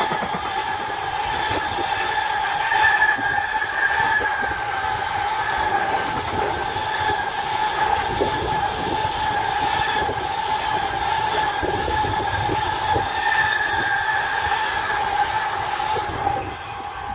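Train running past on the line, a steady rail rumble with a continuous high ringing tone over it. The sound drops away shortly before the end.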